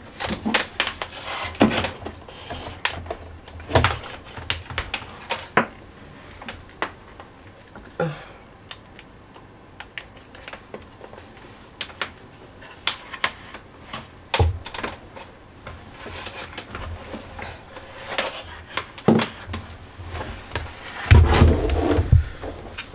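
Irregular clicks and light knocks of things being handled, spaced unevenly with quiet gaps between them, and a cluster of heavier thumps near the end.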